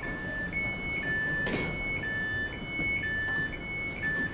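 Electric multiple unit's door-closing warning signal: an electronic two-tone beep alternating between a lower and a higher note, each about half a second, which stops near the end. A short hiss sounds about a second and a half in.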